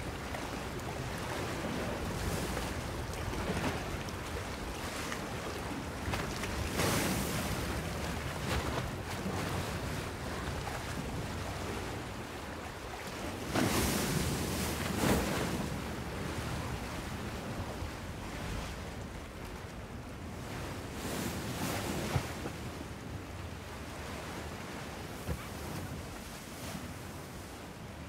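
Outdoor wind noise over a low steady rumble, swelling in gusts every several seconds and easing off near the end.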